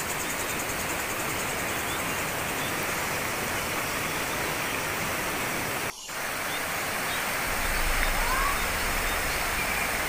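Shallow, rocky jungle river rushing over stones and small rapids, a steady rush of water that briefly cuts out about six seconds in.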